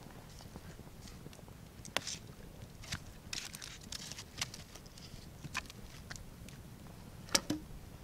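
Small wood campfire crackling, with scattered sharp pops and a brief rustle in the middle; the loudest pop comes near the end.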